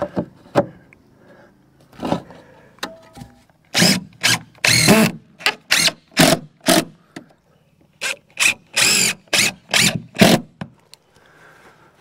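Power drill driving screws into wooden board-and-batten siding, in a rapid series of short bursts of the motor with pauses between.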